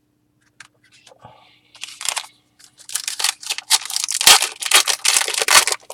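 Trading card pack wrapper being torn open and crumpled: quiet at first, then a dense run of ripping and crinkling starting about two seconds in, loudest near the middle of that run.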